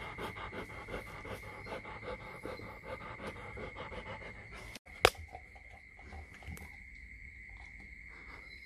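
Rottweiler mother panting rapidly and licking her newborn puppy, a quick even rhythm of about four to five strokes a second that stops a little under five seconds in. A single sharp click follows just after, then only quieter rustling.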